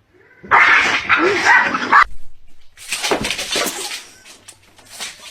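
A dog vocalizing in two loud, rough outbursts, each about a second and a half long, then a shorter, fainter one near the end.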